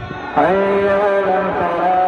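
A man's voice chanting in Arabic in long, ornamented held notes. The voice comes in about half a second in, slides up into a sustained note and shifts pitch about a second and a half in.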